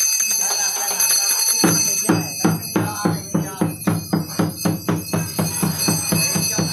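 Drum beaten in a fast, even rhythm, about four strokes a second, starting just under two seconds in, over a steady high ringing.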